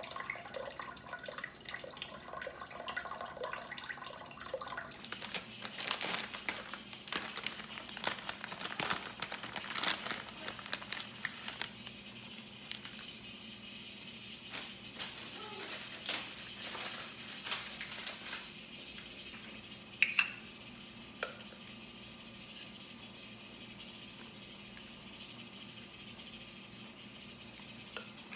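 Cooking-pot preparation sounds: water from a sink sprayer running into a pot over a whole chicken in the first few seconds, then scattered light clicks and knocks as garlic cloves and bagged herbs are dropped into the pot. One sharper knock about twenty seconds in is the loudest.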